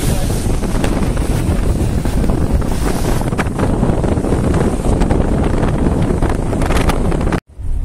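Wind rushing over the microphone of a camera held at the side window of a moving car, a loud, dense, steady noise that cuts off abruptly about seven and a half seconds in.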